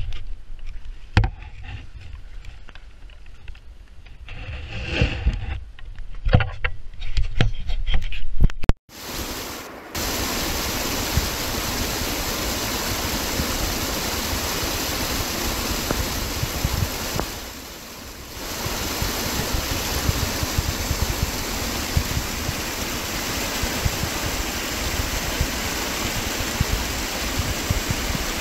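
Small forest creek cascading over rocks: a steady rush of white water that takes over about nine seconds in. Before that, scattered knocks and low rumble from handling close to the microphone.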